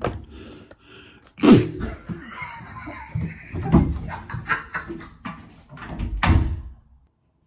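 A string of knocks and thumps with handling noise, the loudest about one and a half seconds in and again near the end. The sound then cuts off abruptly.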